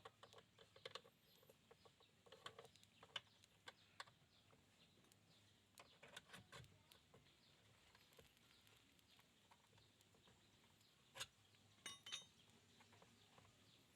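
Near silence with faint, scattered clicks and light taps, and a short cluster of them about eleven to twelve seconds in.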